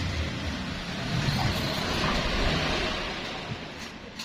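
Steady rushing noise with a low rumble, swelling through the middle and easing off toward the end.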